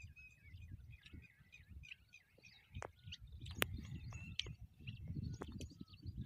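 Small birds chirping, many short calls overlapping, over an uneven low rumble of wind on the microphone. A few sharp clicks come midway.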